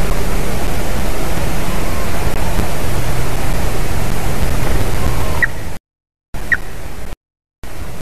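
Steady rushing noise from a treetop nest camera's microphone, cutting out completely twice for about half a second each, near six and seven seconds in. Two short, high bird notes sound just before and between the gaps.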